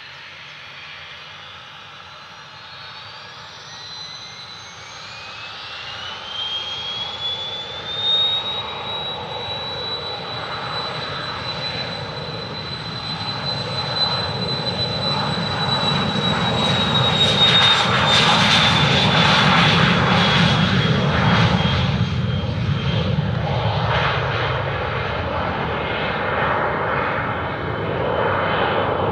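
Cessna Citation XLS business jet's twin Pratt & Whitney Canada PW545B turbofans spooling up to takeoff power, with a whine rising in pitch over the first several seconds and then holding high. The jet then rolls down the runway and climbs away, its engine rumble and whine growing loud as it passes and easing a little near the end.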